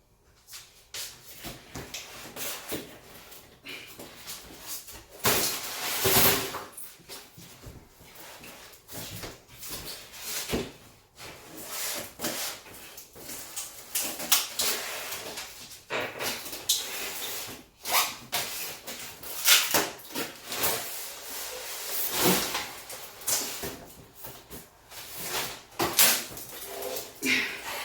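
Irregular rustling, scraping and knocking as the packaging around a new fridge freezer is worked loose and the appliance is handled, with louder bursts about six seconds in and again about twenty-two seconds in.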